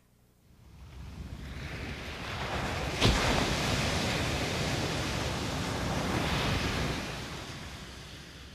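Sound effect of sea waves washing in, swelling up from quiet with one sharp crash about three seconds in, then slowly fading near the end.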